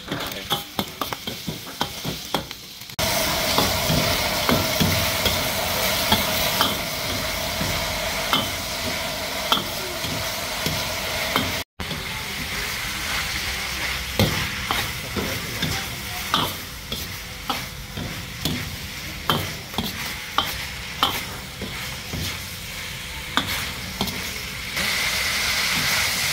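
Eel pieces and chilies stir-frying in a hot wok: steady sizzling of oil, with the steel ladle repeatedly scraping and clacking against the wok. The sizzle jumps louder about three seconds in and again shortly before the end, as more food hits the hot oil.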